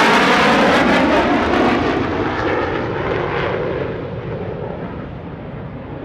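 Four rear-mounted Rolls-Royce Conway jet engines of a Vickers VC10 flying past, loud at first, then fading as the aircraft draws away, the high hiss dying off after about two seconds and leaving a duller, distant rumble.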